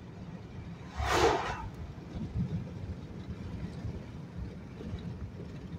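Steady low road and engine rumble inside a moving vehicle's cabin. About a second in comes a brief whoosh, which fits a car passing in the other direction.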